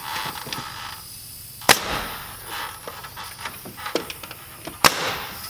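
Nail gun firing twice, about three seconds apart, driving nails to fasten a 2x6 wooden wedge into the boxed soffit framing.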